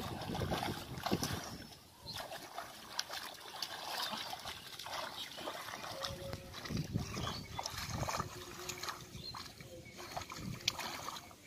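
Hands groping through shallow muddy water, making irregular small splashes and squelches.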